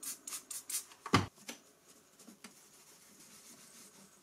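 A trigger spray bottle spritzing a microfibre cloth, about four quick hisses in the first second, then a single loud knock, then faint rubbing as the cloth wipes a touchscreen.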